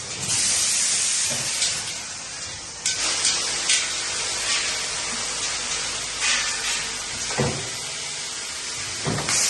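Automatic vibratory-bowl bagging machine running. Bursts of compressed-air hiss, one near the start and one at the end, come with sharp clicks and a few low knocks from the mechanism.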